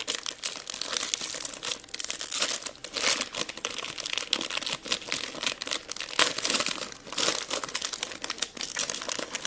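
Plastic wrapper crinkling and crackling continuously as it is handled and torn open by hand.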